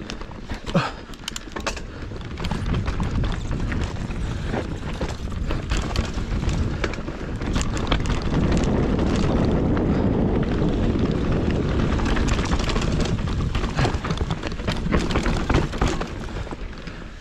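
Mountain bike running fast down a dirt trail: a steady rush of tyre and wind noise with many sharp clicks and rattles over bumps, building up in the middle.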